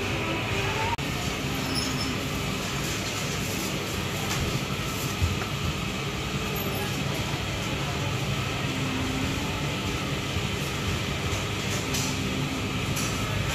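Steady mechanical rumble and hum of workshop machinery running, with a few light knocks and splashes.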